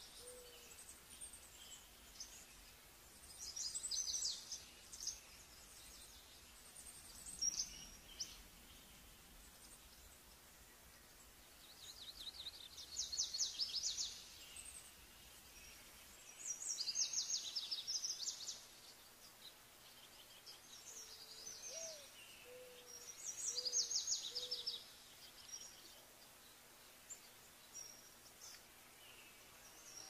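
Wild birds calling: four bursts of high, fast trilling song, each a second or two long, spread through the stretch. A short series of low hooting notes from another bird comes at the very start and again about two-thirds of the way through.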